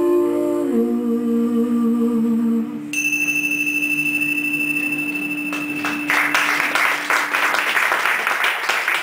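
The last held notes of live music, which stop a little under three seconds in, followed by a single high steady tone for about three seconds. The audience then breaks into applause about six seconds in.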